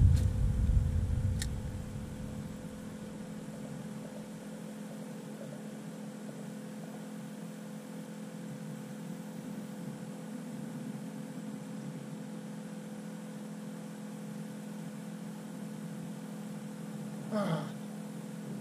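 Steady low hum of a small battery-powered aquarium aerator pump. A single sharp click comes about a second and a half in, and a low rumble in the first two seconds fades away.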